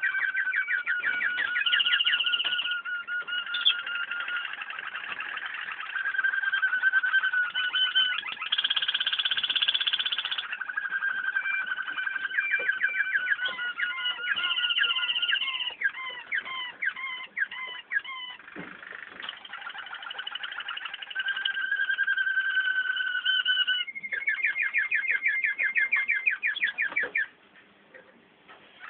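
Waterslager canaries, a Belgian song-canary breed, singing: a near-continuous song of rolling trills, held notes and fast strings of repeated chirps. The song breaks off for about a second just before the end.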